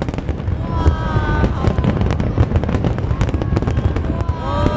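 Aerial fireworks bursting in rapid succession: a dense run of sharp cracks and bangs over a constant low rumble of booms.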